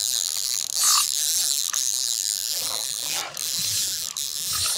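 Spinning fishing reel being cranked by hand: a steady, fine ratcheting whir from its gears.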